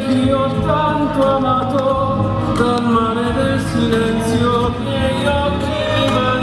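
Music with singing: a melody of held notes moving in steps, steady in loudness.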